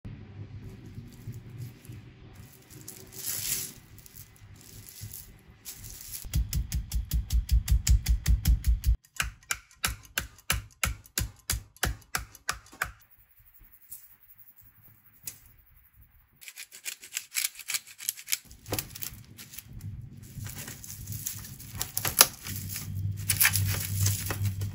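Raw chicken breasts being pounded flat under plastic wrap with the bottom of a metal pot: runs of rapid, repeated thuds and knocks on a cutting board. Near the end, plastic cling wrap is pulled off the roll and stretched over a tray.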